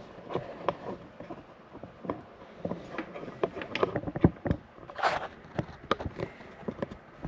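Handling noise: irregular clicks, taps and knocks of objects being handled, with a short rustle about five seconds in.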